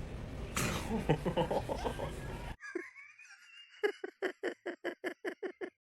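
A person laughing. After an abrupt cut, a quieter stretch ends in a quick run of short laughs, about five a second.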